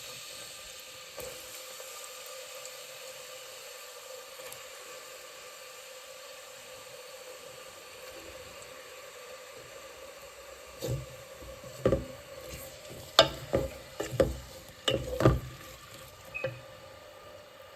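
Chopped onions frying in hot oil in a pan, a steady sizzle. From about eleven seconds in, a run of sharp knocks as a utensil stirs the onions against the pan.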